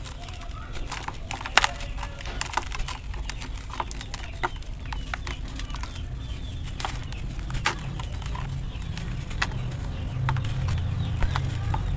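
Dry sand-cement chunks crunching and crumbling between fingers, with irregular gritty crackles and the odd sharper crack as pieces break, and powder pouring back into the bowl. A steady low rumble runs underneath and grows louder near the end.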